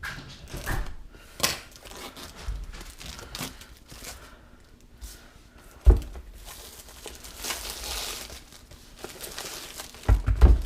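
Packaging being torn open and crinkled by hand, with scattered clicks and a few dull thumps as the box is handled; the loudest thumps come about six seconds in and near the end.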